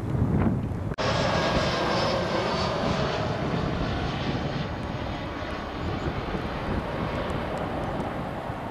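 Jet engines of a TAP Airbus A319 on short final approach, a steady whine with a faint high tone that eases a little as it flares to land. For the first second, before an abrupt cut, there is the low rumble of a Boeing 747-400 freighter on the runway.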